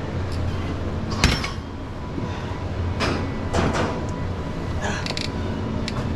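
Leg extension machine: a sharp metallic clank about a second in as the weight stack comes down, then a few lighter knocks and creaks of the machine, over a steady low hum.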